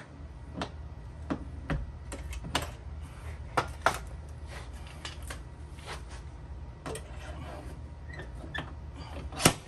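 Light metallic clicks and taps as a slide hammer is fitted onto a stud welded to a car door panel, over a steady low hum. Near the end comes one sharp metallic knock as the slide hammer is pulled to draw out the dent.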